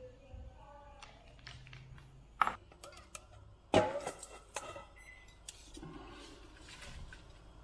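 A few sharp knocks and clatters of kitchen work, the loudest about four seconds in, as raw shrimp are tipped from a mesh strainer into a frying pan.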